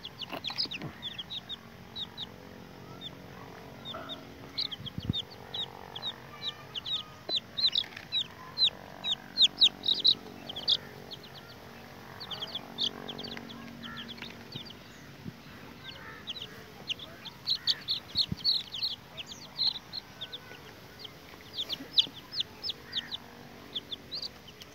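Domestic chicks peeping: a continuous run of short, high-pitched cheeps, many in quick succession.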